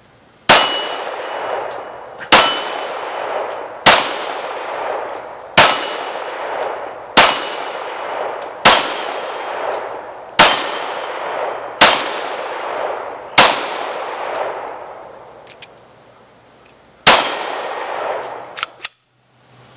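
Ten pistol shots from an FN Five-seveN, one about every one and a half seconds with a longer pause before the last. Each crack is followed by a long ringing decay from the steel targets being hit.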